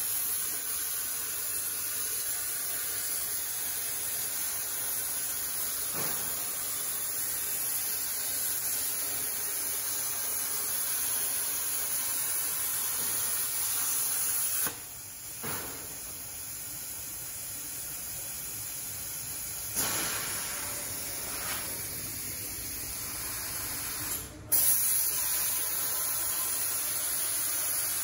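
CNC plasma cutting table's torch cutting sheet metal: a steady high hiss from the plasma arc. The hiss drops away briefly about halfway through, then cuts out for a moment a few seconds before the end and comes straight back.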